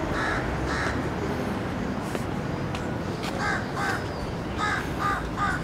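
Crows cawing: two caws at the start, then a run of about five caws from about three and a half seconds in, over a steady outdoor background hum.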